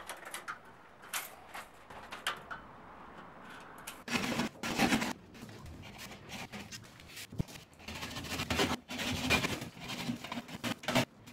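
Hand work on drywall and metal framing: irregular scraping strokes and rustling, with scattered light knocks.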